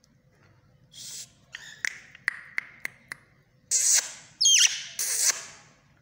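Indian ringneck parakeet calling: a hiss-like rasp and a run of about six sharp clicks, then two loud harsh screeches with a short whistled note that swoops down in pitch between them.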